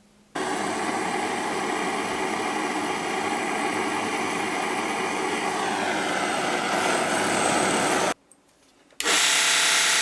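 Electric power tool running steadily, its pitch dipping a little about six seconds in as it takes load. It cuts off about eight seconds in and starts again a second later.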